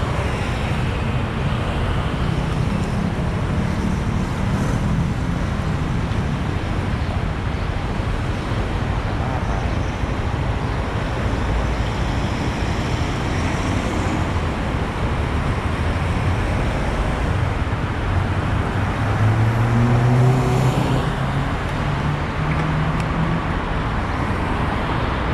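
Road traffic noise with vehicle engines running steadily. About twenty seconds in, one engine rises in pitch and grows briefly louder.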